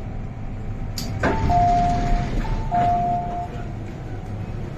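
MTR M-Train door-closing warning chime: a high-low two-tone beep sounding twice, warning that the doors are about to close. It follows a sharp click and a thump about a second in, over the train's steady low hum.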